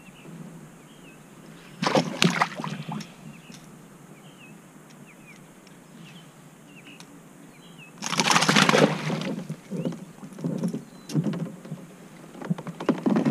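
Water splashing beside a kayak as a hooked bowfin thrashes at the surface, in two loud bursts about two seconds in and around eight seconds in, with smaller splashes near the end. Faint bird chirps behind.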